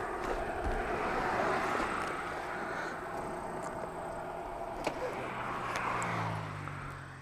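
Road traffic passing close by: a steady rush of tyre and engine noise that swells and fades twice, with two sharp clicks about five and six seconds in.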